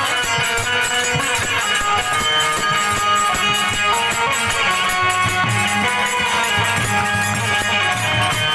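Music: a melody on a plucked string instrument over a steady percussion beat, with no singing.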